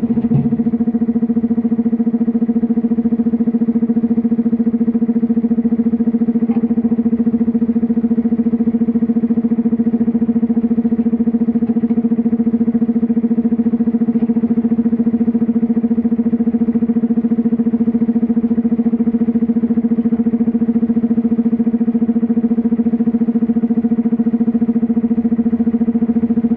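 Komatsu PC210LC-10 hydraulic excavator running at a steady engine speed through a loading cycle: an even, unchanging engine drone. There are a few low thuds at the very start and faint knocks now and then.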